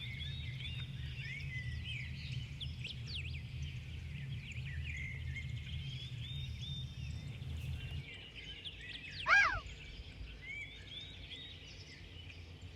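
Many small birds chirping, with a low steady hum under them that stops about eight seconds in. One louder, sharper call comes about a second after that.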